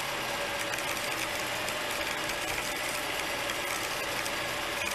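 Rollback tow truck's engine and winch running steadily as the winch cable pulls a car up the tilted bed, a steady mechanical hum with a faint whine.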